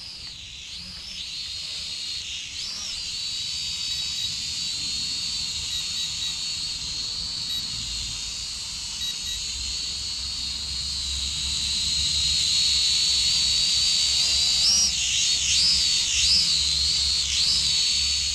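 A small AVIALOGIC H22 quadcopter drone flying, its propellers giving a high whine whose pitch wavers and glides up and down as the throttle changes. It grows louder in the second half, with a low rumble underneath.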